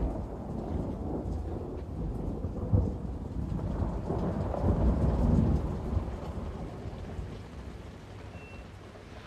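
Low rolling thunder over steady rain. One rumble swells about three seconds in and a longer one around the middle, then both fade.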